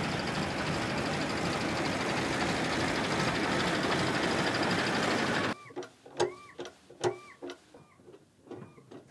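Heavy military truck driving slowly past on tarmac: a steady, dense engine-and-tyre noise that cuts off abruptly about five and a half seconds in. What follows is faint: scattered clicks and short squeaky chirps.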